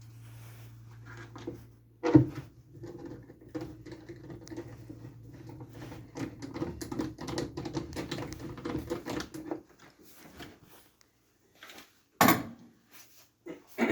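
Gas furnace running with a steady hum and many small rattling clicks, starting with a thump about two seconds in and cutting off about nine and a half seconds in; a sharp knock comes near the end. The shutdown is put down to a dirty flame sensor.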